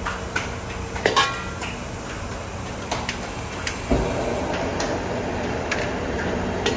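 A steel ladle clinks a few times against a steel wok holding a little oil, one knock about a second in ringing briefly. About four seconds in, a steady rushing noise grows louder as the gas burner under the wok flares up.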